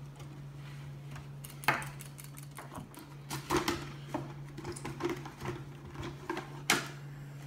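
Toy packaging being opened by hand: a cardboard box with a clear plastic front handled and its flaps pulled, giving scattered sharp clicks and crinkles, the loudest under two seconds in and near the end. A steady low hum runs underneath.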